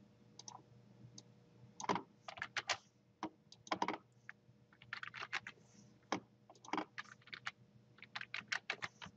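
Typing on a computer keyboard: irregular runs of key clicks with short pauses between words.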